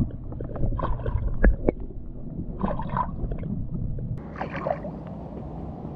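Comal Tackle clip-on popping cork being jerked at the pool surface, heard from underwater: three short splashing gurgles about a second and a half apart, with a few faint clicks between the first two.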